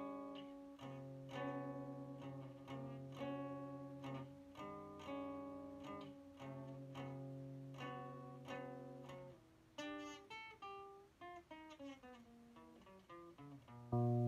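Nylon-string guitar with a capo, plucked chords ringing over a held bass note, then a softer run of single notes stepping downward about ten seconds in, and a louder chord near the end.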